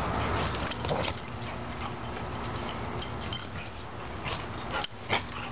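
A Newfoundland and a yellow dog play-fighting: scuffling through the steady noise, with a few short clicks and clinks.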